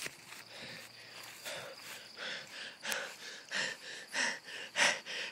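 A person breathing hard and out of breath after running, with breaths about every half second that grow louder toward the end.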